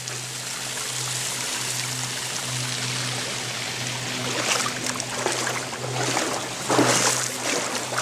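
Water trickling and running, like a small stream, with a steady low hum underneath. There are a couple of louder rushes of water noise in the second half.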